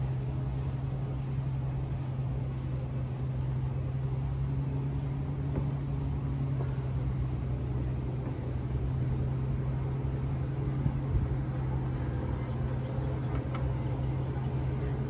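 Steady low motor hum that holds the same pitch throughout, with one short knock about eleven seconds in.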